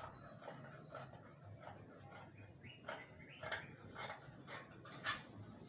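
Fabric scissors snipping through embroidered lace, a quiet string of short cuts at about two a second.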